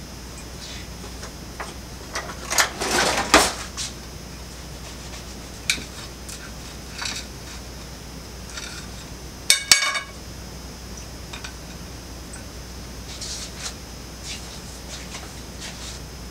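Kitchen knife on a clear glass plate while a baked stuffed pastry is cut, with scattered scrapes and taps of the blade. About ten seconds in come two sharp, ringing clinks of metal on glass close together.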